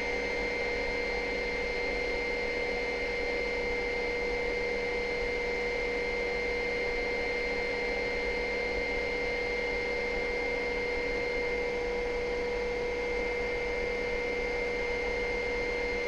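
Helicopter in climbing flight: a steady, unchanging drone with a constant low hum and a higher whine.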